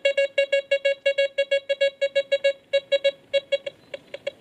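Desert Gold 3 metal detector sounding its target tone: a fast string of short, mid-pitched beeps, about six a second, as it detects a small pewter pot at about 74 cm. After about two and a half seconds the beeps turn sparser and weaker as the pot is drawn away.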